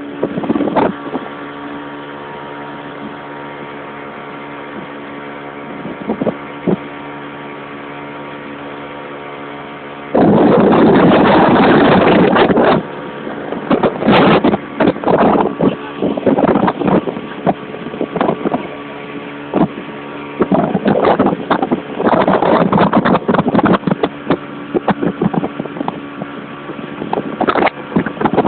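Boat motor running steadily. From about ten seconds in, loud, irregular bursts of rushing noise come over it.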